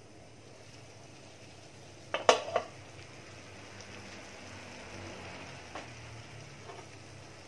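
Metal cookware clattering: three or four quick knocks about two seconds in, over a faint steady hiss.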